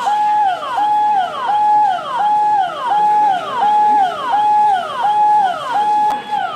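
Electronic emergency siren on a fast repeating cycle, about one and a half cycles a second: each time a held high tone drops sharply in pitch, then jumps back up.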